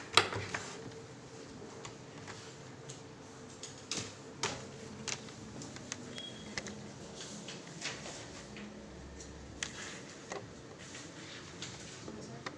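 Scattered light clicks and knocks of objects being handled, over a faint steady hum.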